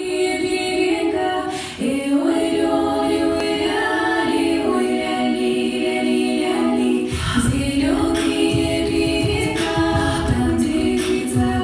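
Women's choir singing a folk song in several-part harmony, unaccompanied at first. About seven seconds in, a low rhythmic beat joins beneath the voices.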